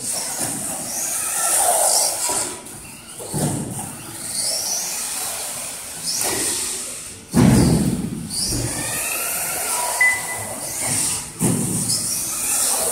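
Turnigy 5.5T brushless motor of a TLR 22-4 2.0 electric RC buggy whining, rising in pitch again and again as the car accelerates and falling off between. A few louder bursts break in, the loudest about halfway through.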